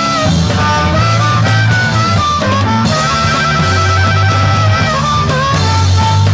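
Live rock band playing: a bending, wavering lead line over electric bass and drums.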